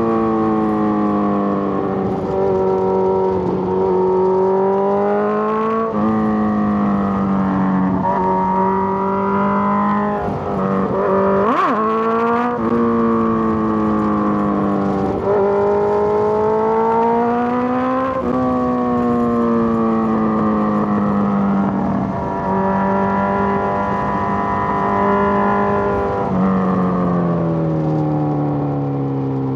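Suzuki GSX-R1000 inline-four engine under way, its pitch climbing and dropping back at each upshift, then falling off near the end as the bike slows. A brief sharp rush of noise cuts in about twelve seconds in.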